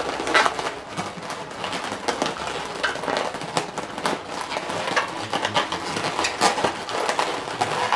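Inflated latex modelling balloons rubbing and squeaking against the hands and against each other as a twisted balloon figure is handled: a dense, irregular run of crackles and short squeaks.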